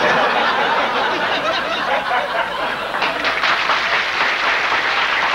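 Audience laughing and applauding, a steady wash of clapping with laughter in it.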